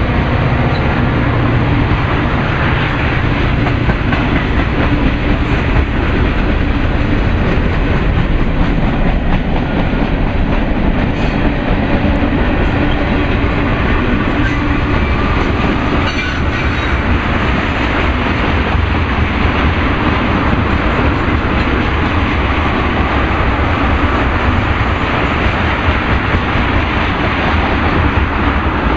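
Freight cars of a passing train rolling by close: steady, loud noise of steel wheels on rail, with a few scattered clicks a little before the middle of the stretch.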